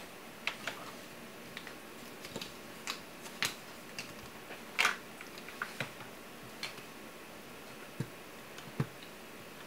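Irregular ticks and clicks, about a dozen, the strongest about five seconds in, over a steady hiss. They come from hot metal contracting as a graphics card cools after being reflowed under a spotlight.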